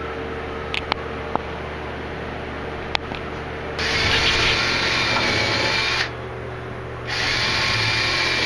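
Power drill running in two bursts of about two seconds each, working into a wooden ceiling joist overhead while a grow-light fixture is hung. A few light clicks come before the first burst.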